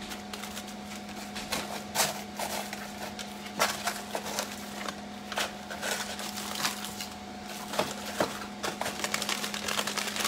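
Plastic-bagged frozen meat packs being moved and stacked in a chest freezer: irregular crinkling of plastic and sharp knocks of hard frozen packs against each other, a few louder ones scattered through.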